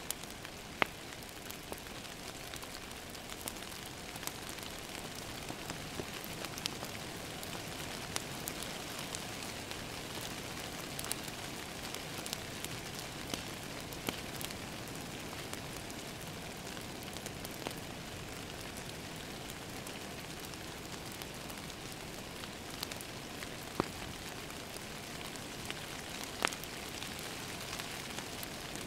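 Steady rain hitting a window, with scattered sharp clicks and pops from a crackling wood fire.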